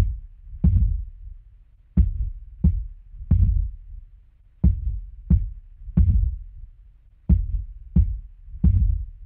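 Heartbeat sound effect for a horror trailer: deep, heavy thuds in groups of three about two-thirds of a second apart, each group starting every two and a half seconds or so.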